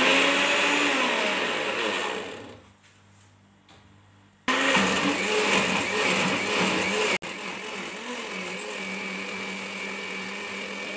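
Countertop blender grinding chopped green chili peppers into paste, run in bursts: the motor runs for about two and a half seconds and winds down, stops, then starts again about four and a half seconds in and keeps running, quieter after about seven seconds.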